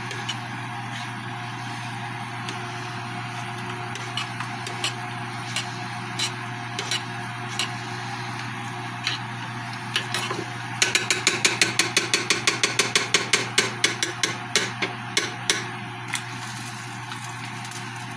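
A spoon knocking and scraping in a cooking pot on the stove: scattered clinks, then past the middle a fast run of clacks, about four a second, for some five seconds, as the pot is stirred. A steady low hum lies under it all.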